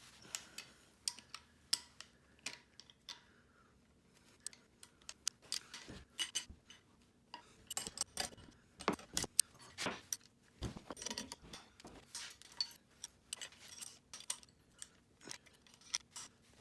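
Faint metal clicks and clinks from hand tools and lopper parts being handled during a repair, a few at first, then coming more often from about five seconds in.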